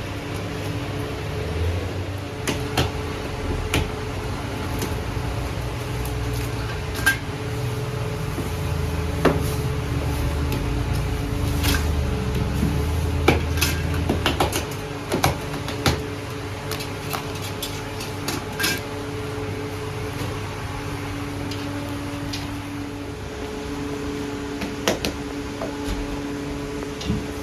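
A steady mechanical hum with a lower rumble that stops about halfway through, under scattered knocks and clinks of kitchen work.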